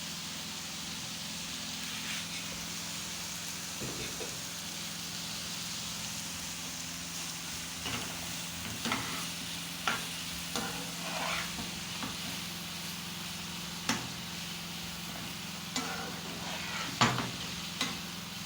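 Chopped vegetables sizzling in hot vegetable oil in a pot, stirred with a spoon that knocks and scrapes against the pot now and then, a few sharp clicks in the second half. A steady low hum runs underneath.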